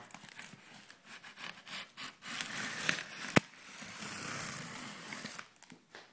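Cardboard boxes being handled: cardboard scraping and rubbing, with a few light clicks and one sharp click about three and a half seconds in.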